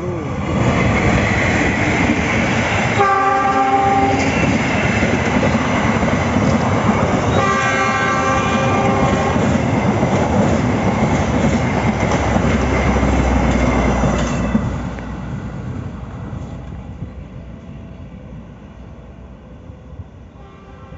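Indonesian passenger train, a diesel locomotive hauling stainless-steel coaches, passing at speed with a loud steady rumble of wheels on rails. The locomotive horn sounds twice, a short blast about three seconds in and a longer one a few seconds later. After about fourteen seconds, as the last coaches pass, the running noise fades away.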